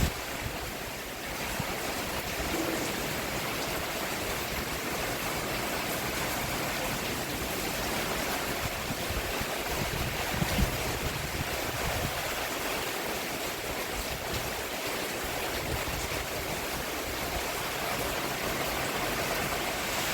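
Steady rain falling on a roof, a dense even patter with no pauses.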